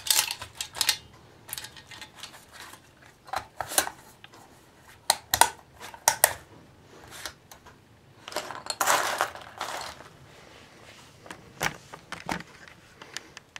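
Small ammo-style storage box being handled: a string of clicks, knocks and rattles as the lid is shut and pressed closed on its packed contents. A longer scraping rustle comes about nine seconds in, as the box is moved across the mat.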